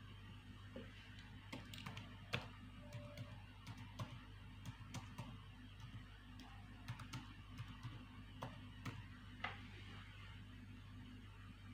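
Faint, irregular clicking and tapping of a computer mouse and keyboard, over a low steady electrical hum.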